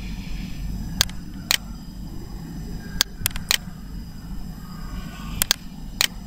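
Computer mouse clicking about eight times, some single clicks and some quick pairs, as captcha image tiles are selected, over a steady low background hum.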